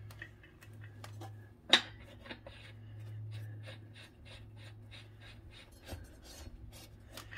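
Steel blade nut being spun on by hand onto a riding-mower blade spindle bolt: a sharp metal click about two seconds in, then a run of light, even ticks, about four a second, as the nut turns on the threads.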